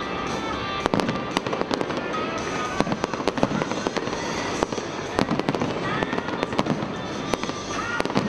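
Fireworks display going off: a dense, irregular run of sharp bangs and crackles from bursting aerial shells.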